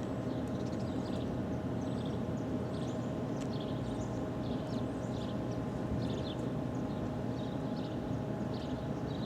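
Steady low outdoor rumble with small birds chirping repeatedly throughout.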